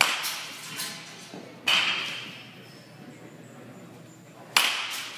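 Baseball bat striking balls in batting practice: three sharp cracks, the second about a second and a half after the first and the third about three seconds later, each fading away over about a second.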